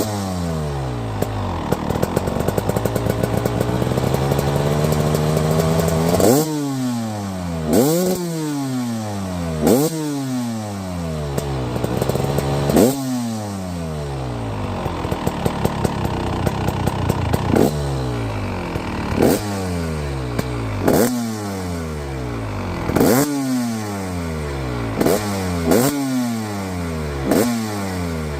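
2024 KTM 300 TBI single-cylinder two-stroke dirt bike engine with an aftermarket silencer, idling for a few seconds, then blipped about a dozen times. Each rev rises sharply and falls back to idle, with gaps of a second or two between blips.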